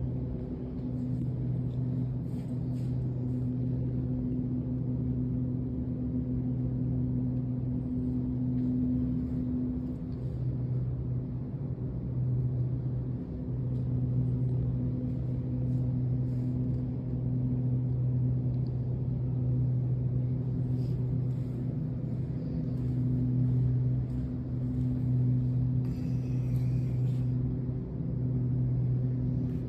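A steady low hum that swells and eases slightly, with a few faint clicks.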